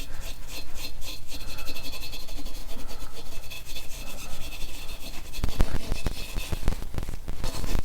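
Chrome-plated motorcycle primary cover being rubbed with Quick-Glo chrome cleaner: rapid, light back-and-forth rubbing strokes to lift rust spots from the chrome.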